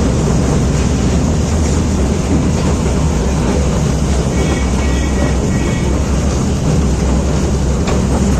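Steady rumble of a ride-on toy train running, heard from aboard with wind on the microphone. A few short high chirps come about halfway through.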